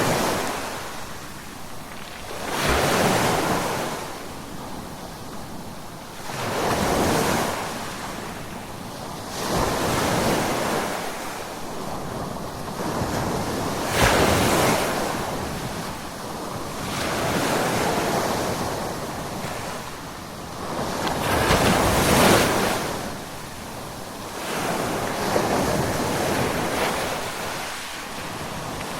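Ocean waves crashing on the shore, a surge of surf about every three to four seconds that swells and then fades.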